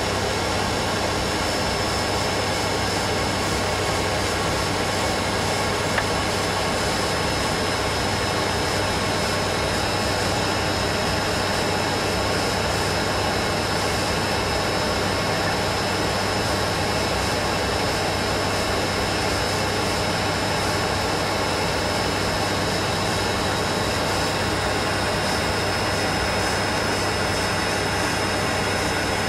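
Cabin noise of an ATR 42-300 turboprop airliner in descent for landing: its Pratt & Whitney PW120 engines and propellers make a steady drone, with a low propeller hum and a thin high whine.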